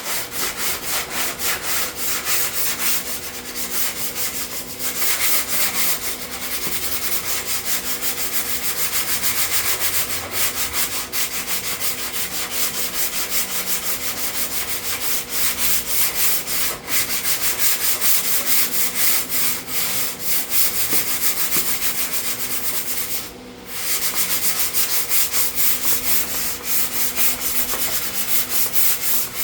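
Sandpaper rubbing over body filler in rapid, repeated strokes, with a short pause about 23 seconds in.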